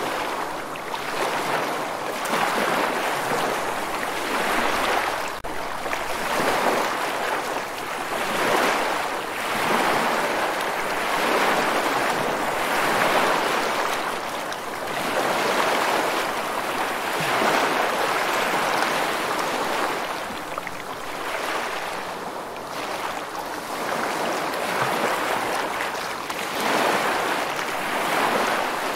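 Sea surf: waves washing in and breaking, a rushing noise that swells and fades every two to three seconds.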